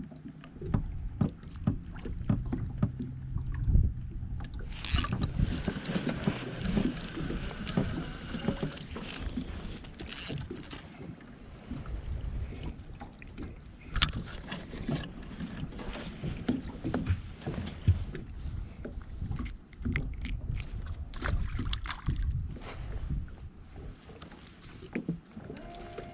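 Small fishing boat rocking on choppy water, with wind on the microphone and water lapping at the hull, and scattered knocks and clicks from gear in the boat.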